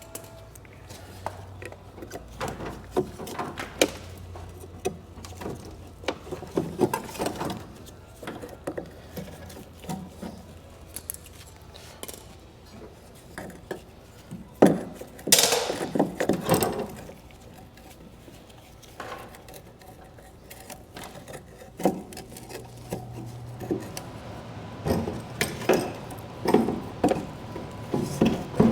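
Hand tools and metal parts being handled: scattered knocks and clinks, with a louder clatter about fifteen seconds in.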